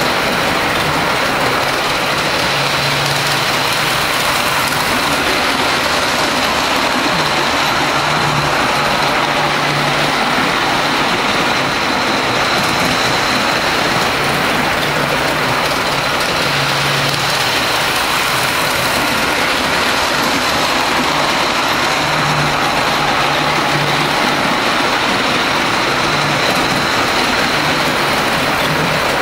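G gauge model train running on its track, a steady mechanical rumble with a low hum that comes and goes several times.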